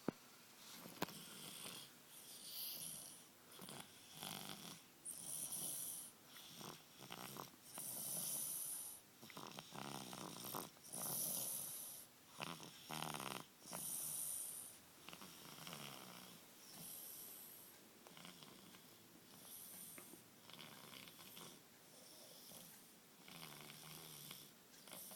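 A baby snoring in deep sleep after a bottle of milk, one soft snore with each breath about every second and a half. The snores are louder through the middle stretch and fainter toward the end.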